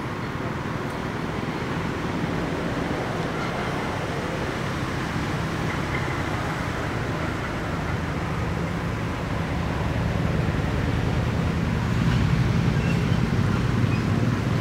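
Steady outdoor background noise with a low rumble, growing a little louder toward the end.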